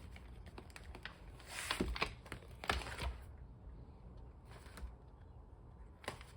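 Paper planner pages being handled and leafed through, with light clicks and rustles, busiest a couple of seconds in and then quieter.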